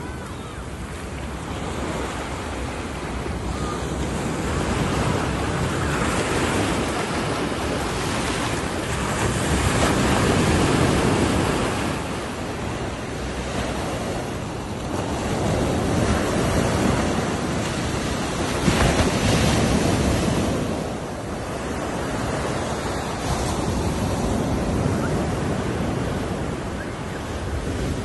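Sea surf on a sandy beach: waves breaking and washing up the shore, the rush of water swelling and fading every several seconds.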